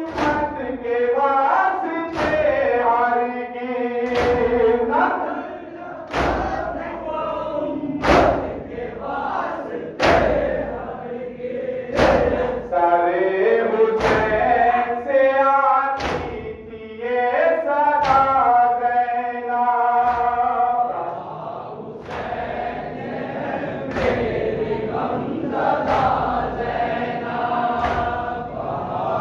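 Men chanting a Shia Muharram nauha (lament) together, with hands striking chests in unison (matam) about every two seconds. After about twenty seconds the chest strikes become softer and the chanting carries on.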